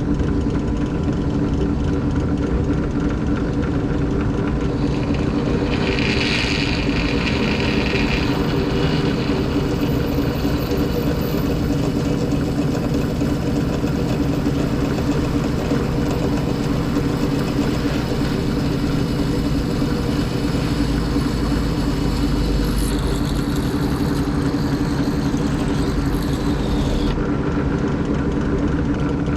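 Benchtop drill press running with a steady motor hum while a 1/8 inch bit drills holes in a metal gas cap. A brief, brighter, higher-pitched sound comes about six seconds in, and another shift comes later.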